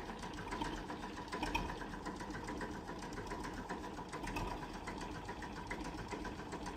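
An engine running steadily, fairly quiet, with a fast, even mechanical clatter.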